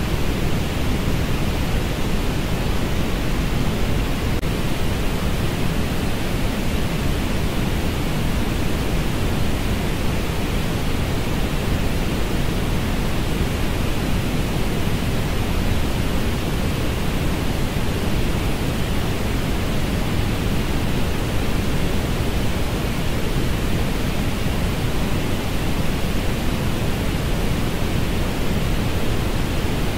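Steady synthetic orange noise: an even, unbroken rushing hiss, heaviest in the low end and with the treble rolled off.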